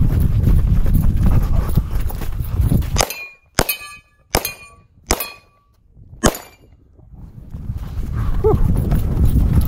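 Five sharp shots from a braced pistol-caliber carbine over about three seconds, some followed by the ring of steel targets being hit. Before and after the shots, wind rumbles on the microphone.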